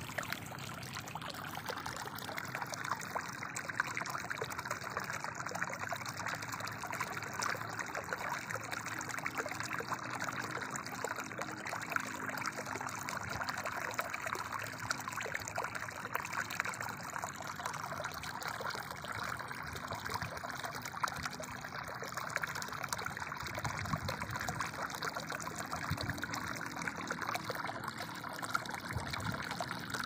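Shallow stream water gurgling as it trickles through grass and spills into a small frothy pool: a steady, bubbly splashing with no let-up.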